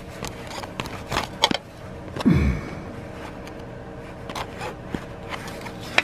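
Light, irregular metallic clicks and taps of a wrench working a bolt on the oil filter adapter of a GM 3.5L V6, swung only a short way at a time. About two seconds in comes a short sound falling in pitch.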